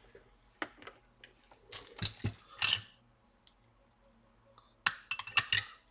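Scattered light clicks and taps of tools and parts being handled on a repair bench, with a brief hissing rustle about two and a half seconds in and a quick run of clicks near the end.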